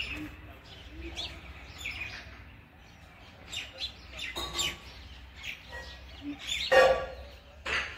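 Sparrow chirping: many short, high chirps, irregularly spaced, with one louder, lower-pitched sound about seven seconds in.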